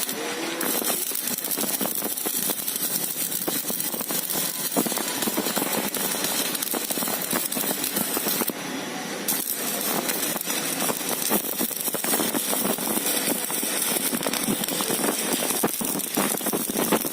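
Stick (MMA) arc welding with a 3.2 mm electrode at about 200 amps: the arc crackles steadily and densely as the rod burns down. The inverter welder under test is holding the arc under full load.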